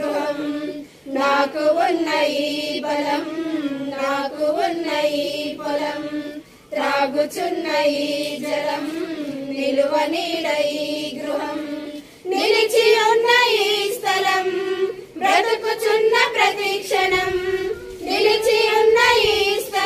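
A group of women singing a Telugu Christian song together in unison, in phrases broken by short pauses; about twelve seconds in the melody moves up to a higher register.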